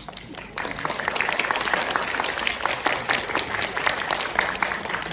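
Audience applauding: many hands clapping, swelling about half a second in and then holding steady.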